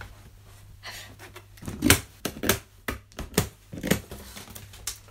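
Cardboard shipping box being handled and opened: a string of irregular knocks, thumps and short scrapes on the cardboard as packing tape is slit.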